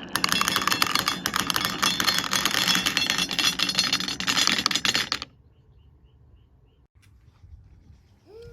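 Glass marbles clattering quickly and densely down a wooden marble run, cutting off suddenly about five seconds in. The rest is quiet apart from a few faint ticks.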